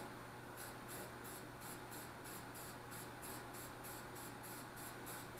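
Aerosol rattle can of spray paint being sprayed in short, quick bursts, about four faint hisses a second, while touching up a patch of aluminium.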